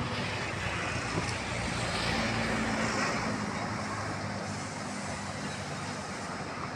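Road traffic: a steady rush of passing vehicles, with a motor vehicle's engine hum that swells about two seconds in and slowly fades.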